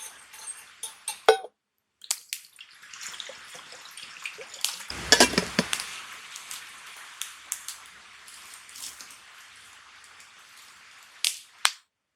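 Steady hiss of rain with a run of clinks and clatters of cookware and utensils, densest and loudest about five seconds in. The sound cuts out abruptly twice.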